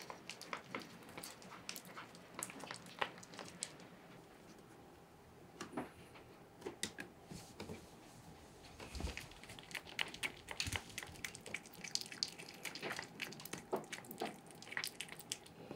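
A domestic cat eating shredded chicken breast mixed with water from a plate: irregular wet chewing and lapping clicks, with two dull knocks around the middle.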